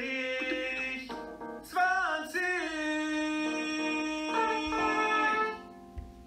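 German coursebook numbers-rap audio track playing: a sung counting of German numbers over music, with held and sliding notes, ending about five and a half seconds in. A single click follows near the end.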